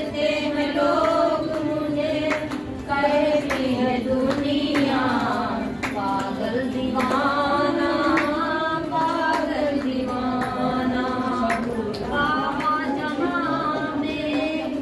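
A group of women singing a Hindu devotional bhajan together, with hand claps.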